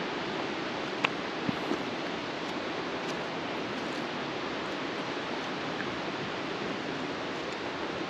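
Steady, even rushing outdoor noise, with a couple of faint ticks about a second in.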